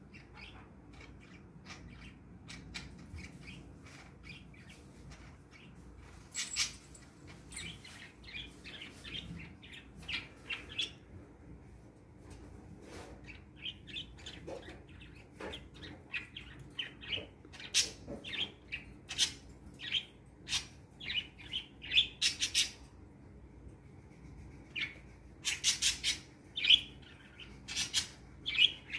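Pet budgerigars (parakeets) chirping in many short, high calls, sparse at first, then busier and louder in the second half.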